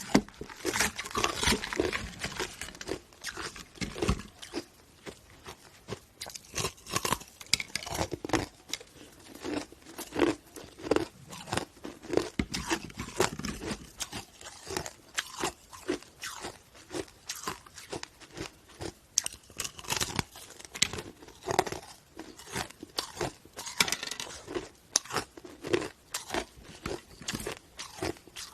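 Chunks of hard ice being bitten and chewed close to the microphone, a rapid, irregular run of sharp crunches and crackles.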